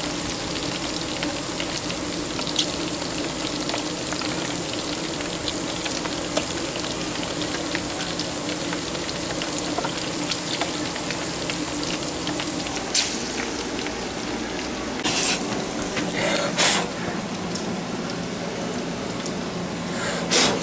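Bacon-wrapped, battered candy bars deep-frying in hot grease in a frying pan: a steady sizzle with constant crackling, and a few louder short noises in the second half.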